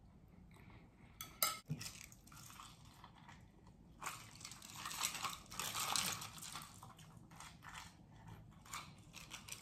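Close-up eating sounds: a few sharp clicks of cutlery on a dish about a second in, then crunchy chewing and biting, loudest around the middle.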